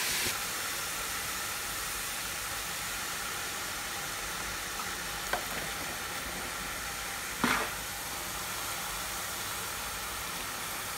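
Steady sizzling hiss from hot carrot halwa cooked in ghee, with two brief short sounds about five and seven and a half seconds in as spoonfuls are served onto a plate.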